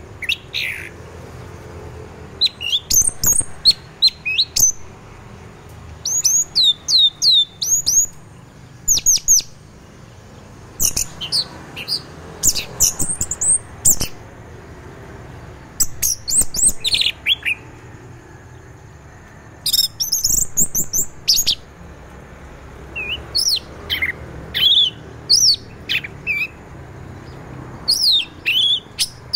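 Caged orange-headed thrush singing in the relaxed 'teler' style: phrases a few seconds long of quick, high sweeping and whistled notes, some in rapid runs of similar falling notes, each phrase broken off by a short pause before the next.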